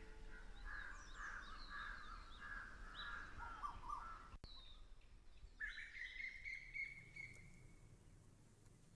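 Faint birdsong: several birds chirping and calling in quick short notes, with one longer whistled call that rises and then holds steady a little past halfway.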